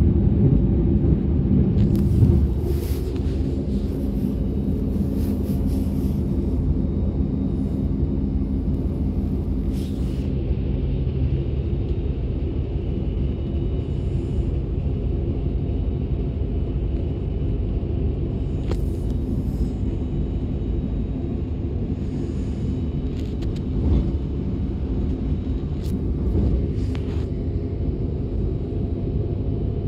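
Ride noise of a DB class 425 electric multiple unit under way, heard from inside the train: a steady low rumble of wheels on track, with scattered brief clicks and rattles.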